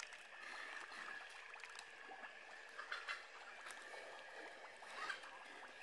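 Faint wet squelching and trickling of muddy water as hands dig and grope through the soft mud of a drained pond, with small scattered clicks and splashes.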